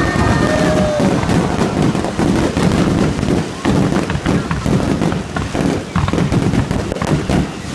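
Fireworks display: a rapid, continuous run of bangs and crackles over a low rumble, with no pause.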